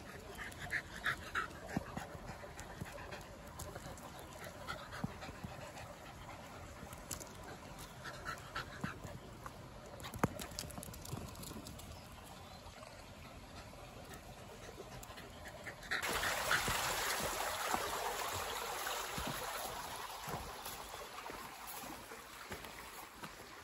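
Shiba Inu dogs whimpering and panting, with short high whines in the first couple of seconds and again about a third of the way in. About two-thirds of the way through, a louder rushing noise starts suddenly and slowly fades.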